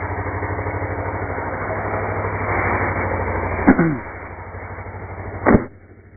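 Kawasaki Ninja motorcycle engine idling with a steady, even pulse, under loud rustling noise on the microphone that drops away about four seconds in. A single sharp knock on the mic comes near the end.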